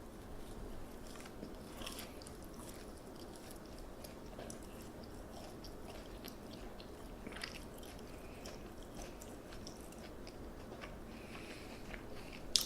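A person chewing a mouthful of crispy kimchi pancake, with faint crunches now and then.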